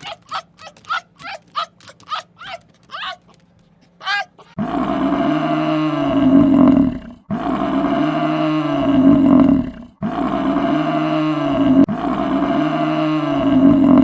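A quick run of short, high animal calls, then from about four and a half seconds in a large animal roaring loudly, the same deep roar of about two and a half seconds repeated back to back several times.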